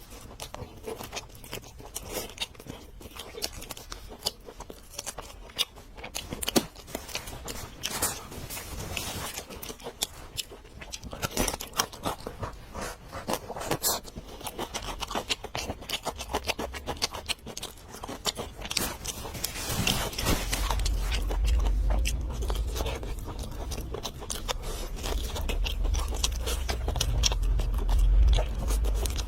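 Close-miked eating: crunchy bites, chewing and wet mouth clicks in quick succession. A low rumble joins in about two-thirds of the way through.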